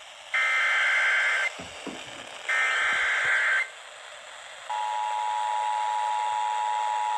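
Two bursts of an Emergency Alert System digital SAME header, a harsh buzzing data warble of about a second each, one second apart. A couple of seconds later comes the steady two-tone EAS attention signal, which marks the start of a new alert message.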